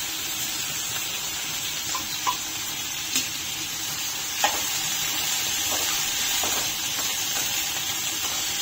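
Sliced onions sizzling steadily in hot oil over a high flame while they fry to light brown. A utensil stirs them and knocks sharply against the pan a few times, loudest about two, three and four and a half seconds in.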